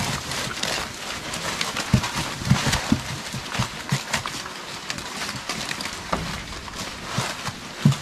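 A group of young pigs eating madre de agua leaves: chewing and the rustle of leaves, with many irregular short knocks and thumps as they jostle.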